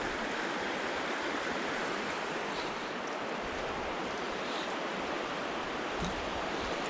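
Steady rush of flowing water. A faint knock about six seconds in.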